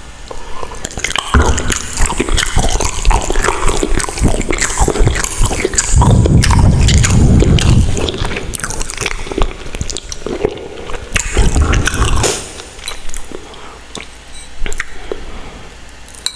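Close-miked chewing of Buldak carbonara ramen noodles: wet mouth clicks and smacks, louder and fuller about six seconds in and again about eleven seconds in.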